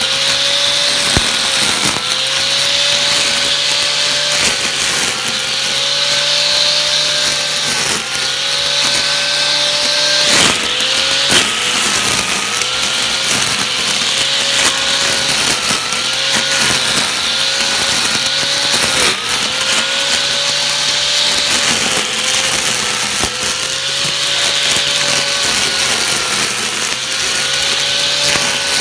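Homemade electric string trimmer, a repaired motor spinning nylon line, whining steadily as it cuts grass, its pitch dipping briefly and recovering every second or two. A sharp knock about ten seconds in.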